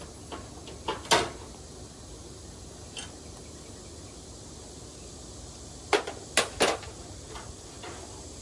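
A few sharp knocks and clanks, as of tools or metal parts being handled: one loud knock about a second in and a quick cluster of three about six seconds in, over a low steady hiss.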